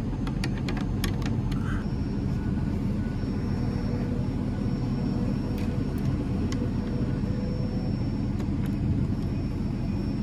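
Steady low rumble of a heavy truck engine running in the street. A few light clicks of metal parts and tools being handled come in the first second or so and a couple more times later.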